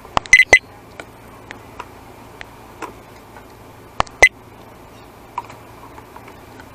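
Sharp clicks and ticks of a small screwdriver working at the plastic housing of a Yamaha Aerox scooter's panel gauge as it is being taken apart. A quick cluster of clicks comes right at the start, two louder ones about four seconds in, and fainter single ticks fall between.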